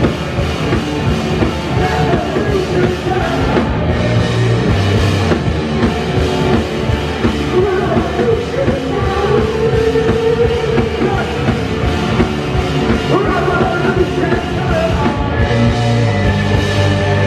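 A rock band playing live and loud: electric guitars and a drum kit.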